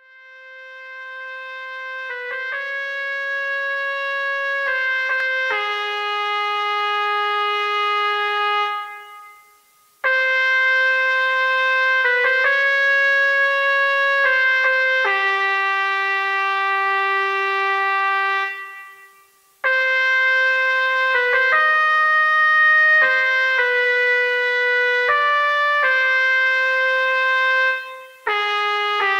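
Background music: a trumpet playing a slow melody of long held notes. It comes in three phrases, each fading out on its last note.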